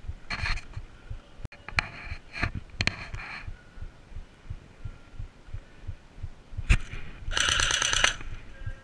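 An airsoft electric gun firing a burst of rapid shots, about seven seconds in and lasting under a second, with shorter rattling bursts in the first few seconds. Irregular low thuds of movement and handling against the camera run underneath.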